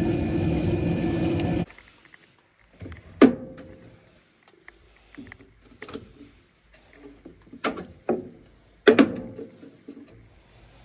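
A steady furnace running noise cuts off abruptly under two seconds in, followed by a series of sharp metallic knocks and clanks, about six of them spread out, as furnace panels and parts are handled.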